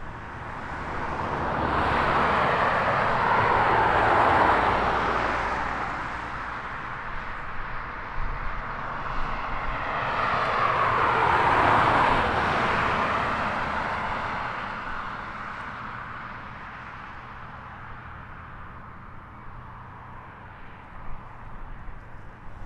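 Jet engines of a Boeing 737-800 at taxi power: a steady rushing jet noise that swells twice and then fades as the airliner taxis past and moves away.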